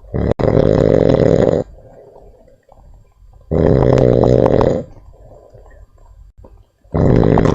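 A sleeping monkey snoring loudly: two long, rasping snores and the start of a third, about three and a half seconds apart, with quieter breathing between them.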